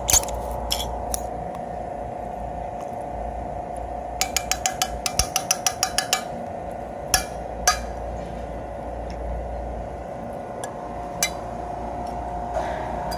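A steady hum with a run of about ten quick sharp clicks in the middle, followed by a few single louder clicks.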